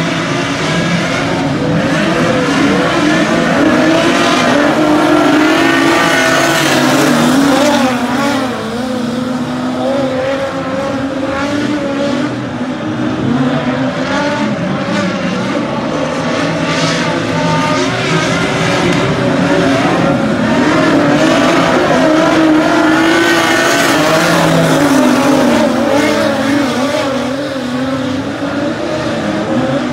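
Several dirt-track speedway sedans racing together, engines at high revs, the pitch rising and falling as the pack sweeps past.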